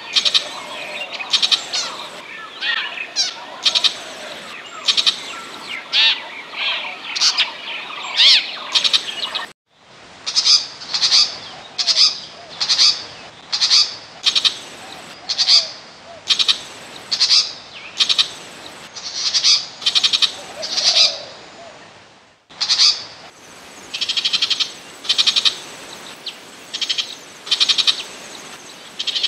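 Burmese shrike calling: a steady series of short harsh calls, about one a second, played as a trapping lure. The recording cuts out briefly twice, about a third and three-quarters of the way through, and the calls resume each time.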